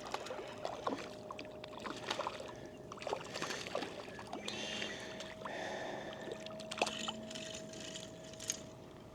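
Water splashing with irregular clicks and rattles as a hooked rainbow trout is reeled in and landed on a spinning reel.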